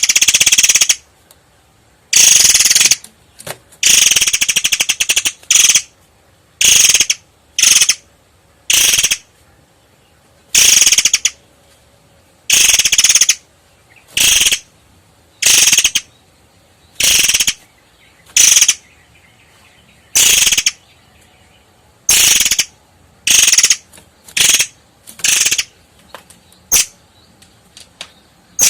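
Long-tailed sibia (murai air) singing a run of sharp, high-pitched phrases, about twenty of them, one every second or two with short pauses between. Some phrases are fast, rattling chatters.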